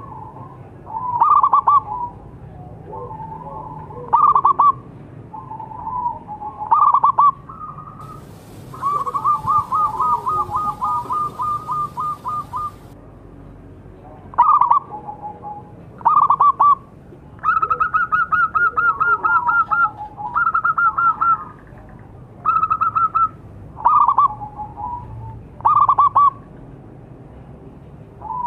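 Zebra dove (perkutut) cooing: short rolling coo phrases repeated about every two seconds, with a long run of quick staccato notes about a third of the way in and another, higher run past the middle.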